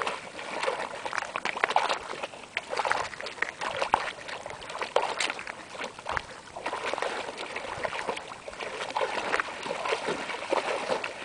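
A dog wading through shallow water, its legs splashing in a steady run of quick, irregular splashes.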